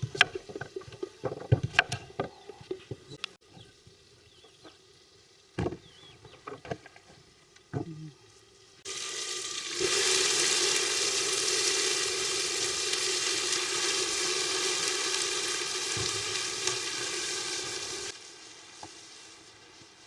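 A few clinks and knocks of utensils against a cooking pot. Then food starts sizzling loudly in the hot pan about nine seconds in and stops suddenly about nine seconds later.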